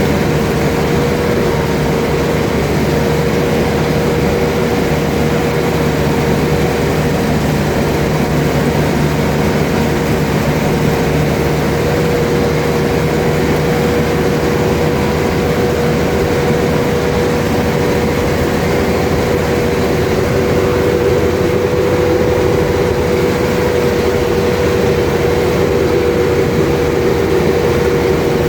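Combine harvester running steadily: a constant engine drone with a steady whine held above it.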